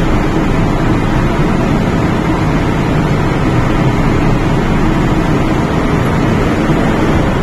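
Steady rumble inside an MTR K-Train car as the train pulls away from the platform.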